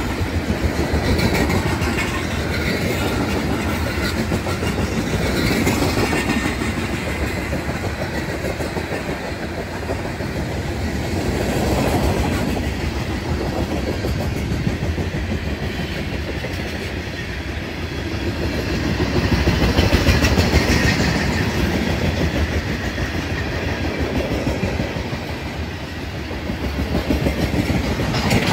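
Long freight train of open-top cars rolling past: a steady rumble of wheels with clickety-clack over the rail joints, swelling and easing several times as the cars go by.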